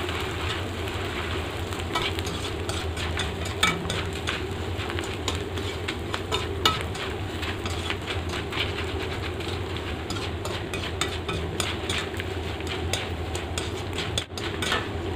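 Gond (edible gum) pieces frying in hot ghee in a kadhai, sizzling steadily while a metal slotted spoon stirs and turns them, with many light clicks and scrapes of the spoon against the pan.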